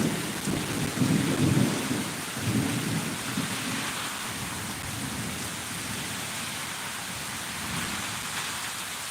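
Thunder rumbling in several low rolls over steady rain, strongest in the first three seconds and then fading, leaving the even hiss of the rain.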